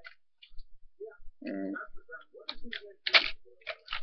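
Airsoft gun being handled and loaded: a string of sharp clicks and knocks in the second half. A short murmured voice sound comes about a second and a half in.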